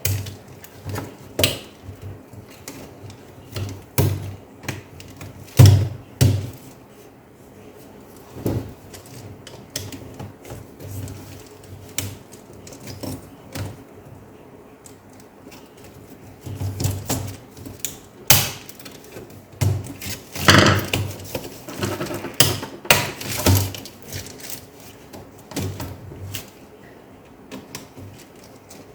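Irregular clicks, taps and knocks of hands working on a laptop's plastic case and parts, a few louder knocks among them, with a short scraping rustle about twenty seconds in.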